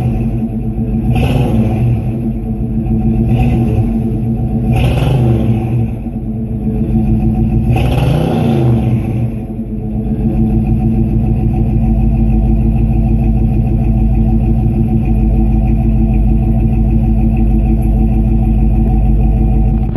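Classic car's warmed-up engine idling through its exhaust, heard from right behind the tailpipe. It is blipped briefly four times in the first half, then idles steadily.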